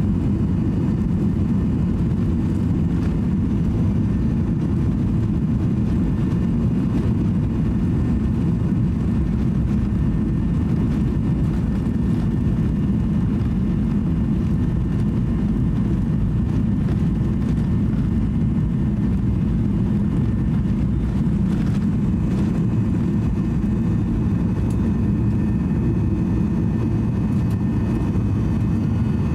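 Boeing 737-800's CFM56-7B jet engines at takeoff thrust, heard inside the cabin: a steady, loud, deep rush with faint high whining tones over it, through the takeoff roll and liftoff.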